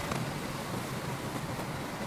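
Diesel engine of heavy earthmoving machinery running steadily, with a few faint knocks.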